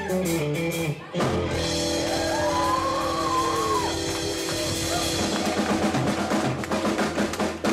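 Live country-rock band with electric guitars and a drum kit plays a falling run of notes, then hits a final held chord that rings over cymbals, with quick drum hits near the end as the song finishes.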